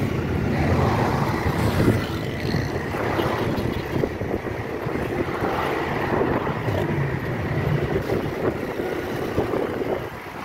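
Steady road and engine noise of a car driving, heard from inside the cabin, with wind rushing over the microphone.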